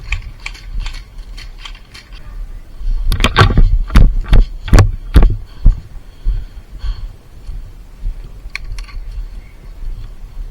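A quick run of light clicks and rattles, then about seven heavy knocks with a low thud between about three and six seconds in, like gear or a gun being jostled against the microphone.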